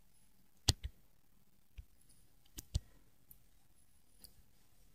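Faint, sparse sharp clicks from handwriting on a digital screen as letters are drawn: about seven clicks, some in quick pairs.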